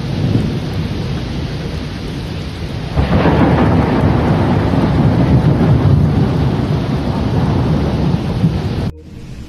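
Violent night thunderstorm: wind and rain thrashing through trees with low rumbling, growing much louder about three seconds in and cutting off suddenly near the end.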